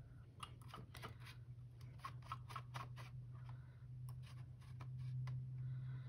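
Faint, scattered light clicks and taps of pencils being handled off-camera, as one woodless graphite pencil is put down and the next picked up, over a steady low hum.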